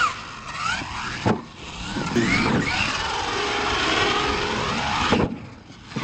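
Radio-controlled monster truck's electric motor whining up and down in pitch as it is driven hard and jumped on dirt, with tyres scrabbling. There is a sharp thud of the truck landing about a second in and another near the end.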